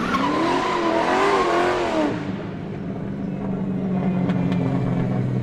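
Car engine revving up and down for about two seconds, then settling into a steady running hum.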